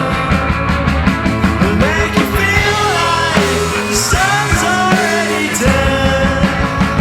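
Rock music: a band playing with a steady drum beat and a sliding sung melody over it.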